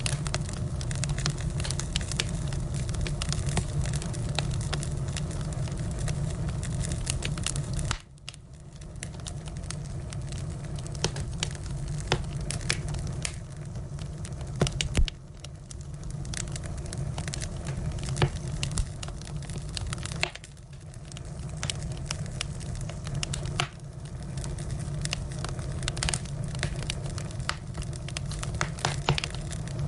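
Firewood burning: irregular crackles and pops over a steady low rumble of flames. The rumble drops away suddenly four times and builds back up.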